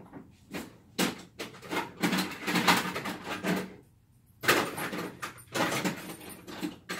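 Irregular clicks, knocks and short scrapes of hand tools being handled and worked at the trimmer's carburetor adjuster screws, with a brief pause about four seconds in.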